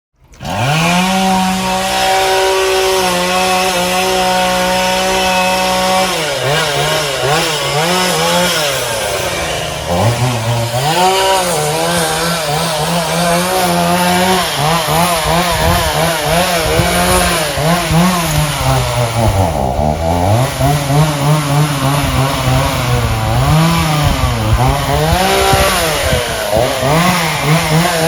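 Chainsaw running at a steady high pitch, then from about six seconds in its pitch repeatedly sags and climbs back as the engine bogs under load and recovers while cutting into oak wood.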